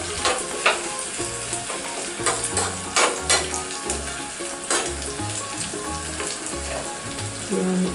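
Sliced shallots and dried red chillies sizzling in hot coconut oil in a small pan as the shallots brown for a tempering. A steel spoon stirs them, scraping and clicking against the pan now and then.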